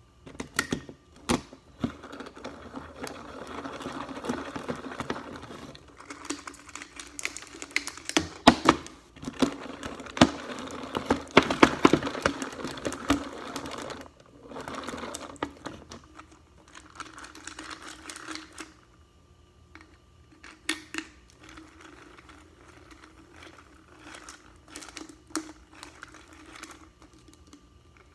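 Homemade slime being mixed by hand: a run of quick irregular sticky clicks and squelches, thickest and loudest in the first half, then thinning out to scattered clicks.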